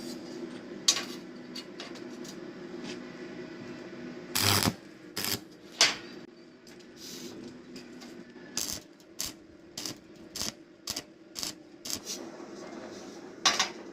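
Sharp metallic clinks and taps at irregular intervals, a dozen or so, coming closer together near the end, over a steady low hum.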